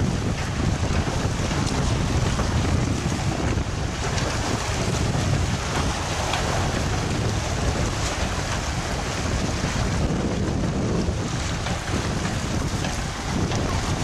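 Steady wind rumbling on the microphone over the wash of choppy sea water.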